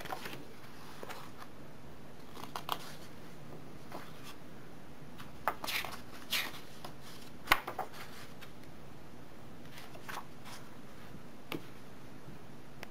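Paper booklet pages being turned by hand: a few brief paper rustles and flicks spread out, with one sharper click about seven and a half seconds in.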